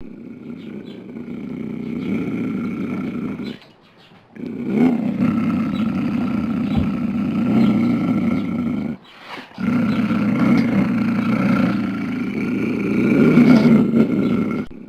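Mountain lion growling in three long, rough stretches, broken by two short pauses about four and nine seconds in.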